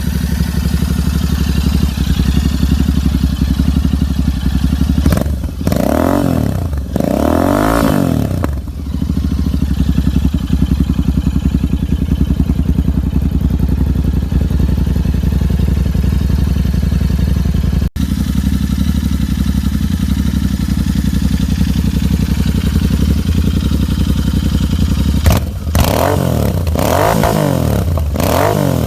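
Royal Enfield 650 parallel-twin engine breathing through a Diabolus aftermarket exhaust, idling steadily and blipped on the throttle: two revs that rise and fall about six seconds in, then three more near the end.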